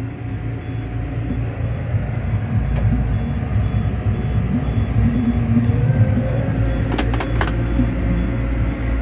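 John Deere 4955 tractor's diesel engine running steadily, a continuous low rumble, with a quick run of sharp clicks about seven seconds in.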